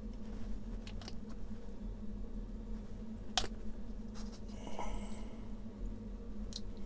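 Light clicks and taps of small plastic model-kit parts handled in gloved hands, the sharpest click about three and a half seconds in, with a brief squeak about five seconds in, over a steady low hum.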